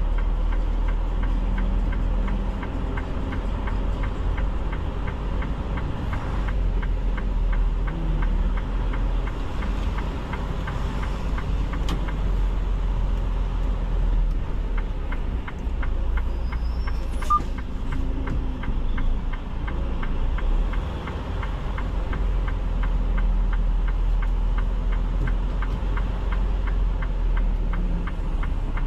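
Semi truck's diesel engine running steadily at low speed with an even clatter, with a brief click about two-thirds of the way through.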